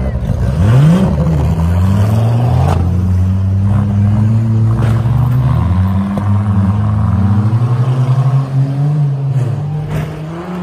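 Several demolition derby mini trucks' engines revving hard at once, their pitches rising and falling over one another, with a few sharp bangs as the trucks hit each other.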